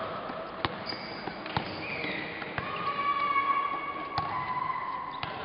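A basketball bouncing on the gym court several times at uneven intervals, with high-pitched sneaker squeaks from players moving on the court.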